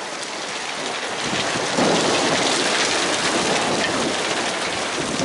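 Graupel (soft hail, snow pellets) falling steadily onto dry grass and ground, a dense hiss of countless tiny pellet ticks like rain on a surface. It gets louder about two seconds in.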